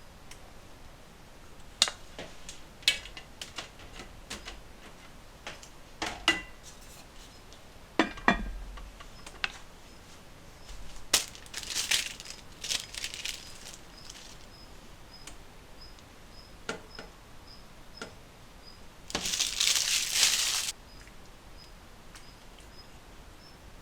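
Scattered knocks, clicks and clinks of objects being handled, with a short hiss that stops abruptly near the end. A faint high ticking repeats a few times a second through the second half.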